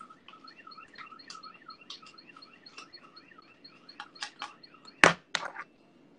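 Quick, regular chirping, like a small bird, repeating several times a second. Near the end it gives way to a few sharp clicks and knocks of the phone being handled; the loudest comes about five seconds in.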